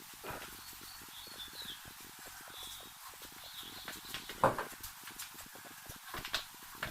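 Clicks and knocks from a car wheel being handled and cleaned, irregular and light, with one sharper knock about four and a half seconds in.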